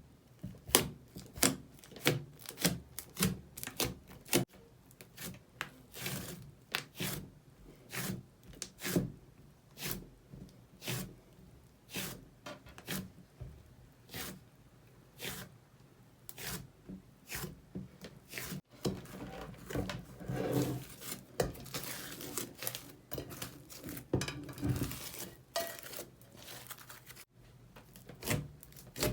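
Slime being squeezed and poked by hand, giving a run of sharp wet clicks and pops, irregularly about one or two a second, with a denser stretch of crackling squishing about two-thirds of the way through.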